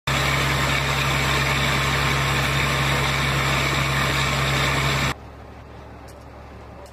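A heavy engine running steadily with a low hum. It cuts off abruptly about five seconds in, leaving a quieter steady hum with a few faint clicks.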